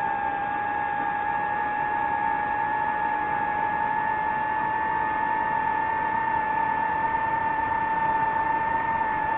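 DJI FPV drone's motors and propellers whining at a steady pitch, with a second, higher tone above it over a hiss of air. The pitch creeps slightly upward as it flies on.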